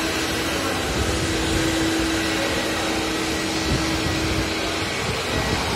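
Corded walk-behind scrubber dryer running: a steady whir of its brush and suction motors, with a steady hum that drops out near the end.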